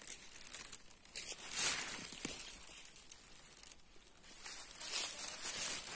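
Faint rustling and crackling of leaves and forest undergrowth, with a few brief crackles early on and a softer stretch in the middle.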